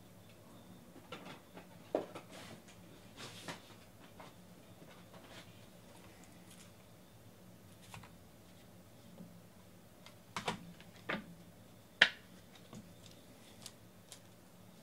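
Scattered light clicks, taps and rustles from small objects being handled on a table, irregular rather than rhythmic, with the sharpest click about twelve seconds in.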